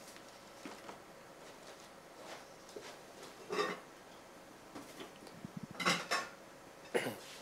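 Kitchen utensils and a metal bowl being handled on a counter: scattered light clinks and knocks, with louder clatters about three and a half, six and seven seconds in.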